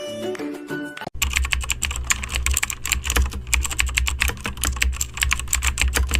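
Fast typing on a computer keyboard: a dense, irregular clatter of key clicks over a low hum, after about a second of music at the start, cutting off abruptly at the end.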